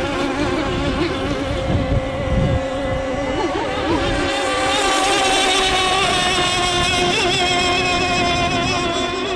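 Small engine of a radio-controlled scale racing hydroplane running flat out, a steady high-pitched whine, with low wind buffeting on the microphone for a moment about two seconds in.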